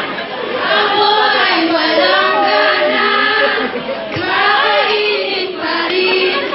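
A group of high-school students singing a jingle together as a choir, in sung phrases with short breaks between them.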